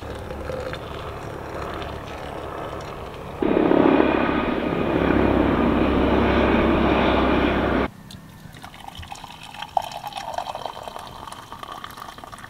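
Hot water poured from a pot into a French press, then a helicopter flying overhead, its engine and rotor loud and steady for about four seconds and cutting in and out abruptly. Near the end, coffee splashes as it is poured from the press into a mug.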